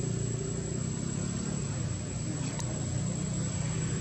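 A motor vehicle engine running steadily, a low, even rumble, with a thin steady high-pitched whine over it and a faint click about two and a half seconds in.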